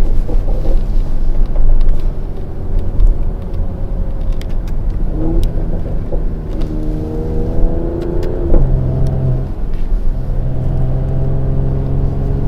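Mercedes-AMG GLE 53 Coupe's turbocharged 3.0-litre straight-six engine running under way with its exhaust set to powerful. The engine note climbs in pitch from about five seconds in and drops sharply at a gear change a few seconds later, then pulls again.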